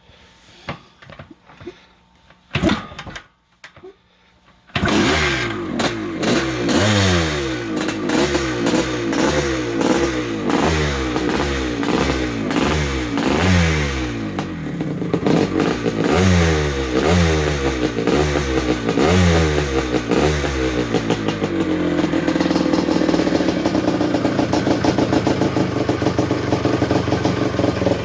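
1973 Yamaha MX250's two-stroke single-cylinder engine starting for the first time after a rebuild: a few knocks, then it fires about five seconds in. It is revved in repeated rising blips, then settles into a steadier fast run near the end.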